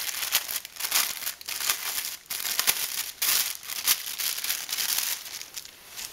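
A clear plastic parts bag crinkling and rustling in gloved hands, irregular and crackly, dying down near the end.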